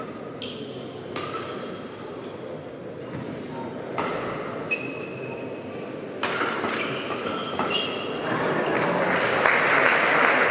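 Badminton singles rally: several sharp cracks of rackets striking the shuttlecock, with short high shoe squeaks on the court floor between them. From about eight seconds in, the crowd's applause builds as the point ends.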